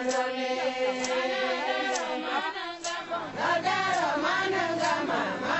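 Female voices singing together in a chant-like song, with a sharp beat about once a second.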